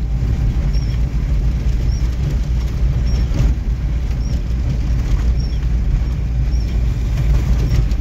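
Inside a car's cabin: steady low engine and road rumble as the car drives slowly along a muddy dirt road. A faint short squeak repeats about once a second.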